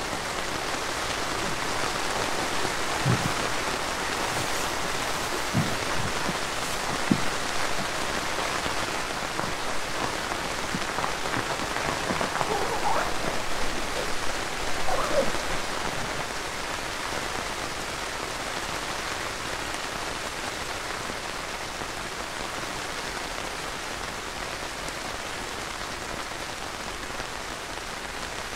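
Steady rain falling on the nylon rain fly of a backpacking tent, heard from inside the tent, with a few heavier drops landing sharply in the first several seconds.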